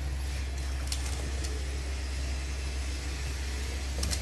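Steady low hum of a running kitchen appliance, with a few light taps of a silicone spatula against a metal baking tray about a second in and near the end.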